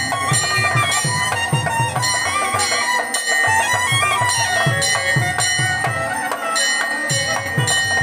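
A traditional folk trio playing: a clarinet carries an ornamented, sliding melody over the steady held chords of a hand-pumped box harmonium. A double-headed hand drum keeps a quick, regular beat underneath.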